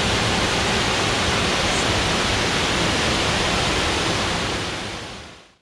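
Steady rushing roar of High Falls, a broad waterfall cascading down granite into a rocky river pool, fading away over the last second.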